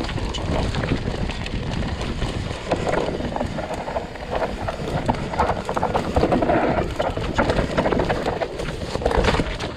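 Mountain bike ridden fast down a rough dirt trail: tyres running over rocks and roots with constant irregular rattling and knocking from the bike, over a steady low rumble of wind on the camera.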